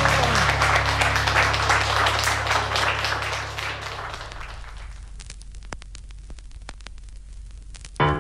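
Applause, dense at first and thinning to a few scattered claps. Under it the last held low note of a rock ballad fades out about halfway through.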